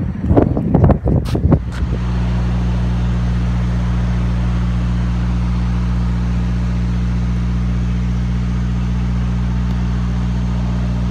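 Brief rustling and knocks of camera handling for about two seconds, then a truck's diesel engine idling with a low, even hum.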